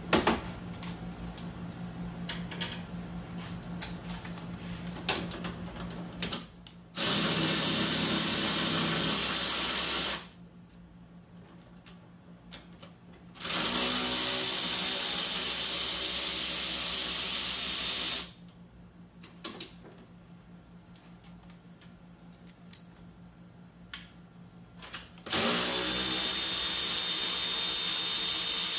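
Cordless power tool with a 10 mm socket spinning bolts out of the electric fan mount. It runs in three steady bursts of a few seconds each, its motor winding up at the start of each, with clicks of handling between.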